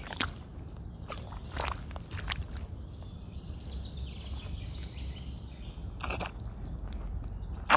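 Sneakers stepping in a shallow muddy puddle, squelching and splashing with about five separate steps spread over several seconds, the loudest at the very end.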